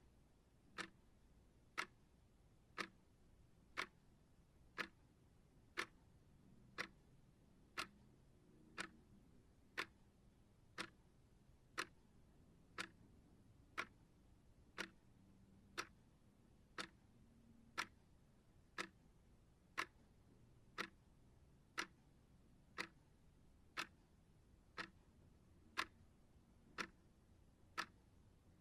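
Steady clock-style ticking, one short sharp tick every second, evenly paced throughout.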